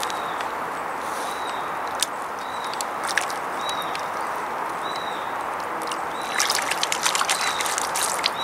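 Steady background noise with a small bird giving a short chirp about once a second. From about six seconds in there is a quick run of clicks and rustling.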